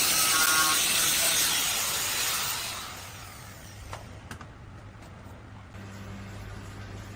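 A loud steady hiss that dies away about three seconds in, followed by a couple of light clicks and then a low steady hum starting near the end.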